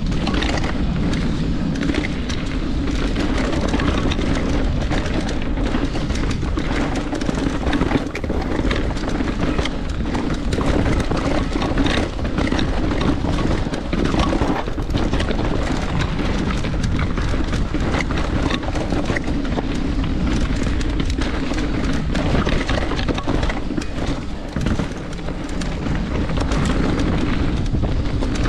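Mountain bike descending a rough trail, heard through an action camera riding with it: a constant deep wind rumble on the microphone, tyre noise on dirt and rock, and frequent sharp knocks and rattles as the bike runs over rocks and roots.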